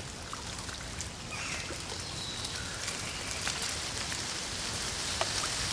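Steady rain falling, with many individual drops ticking close by; it grows a little louder toward the end.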